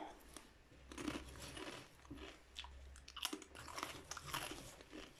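Faint, irregular crunching and crackling close to the microphone, several short strokes a second.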